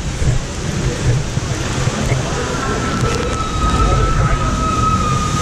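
Loud, steady rush of water churning through a raft-ride channel, with a low rumble. About two seconds in, a steady high tone like a whistle starts over it and holds.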